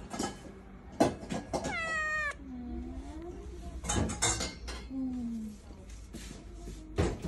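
Domestic cat giving one short meow that falls in pitch about two seconds in, with a few sharp knocks around it.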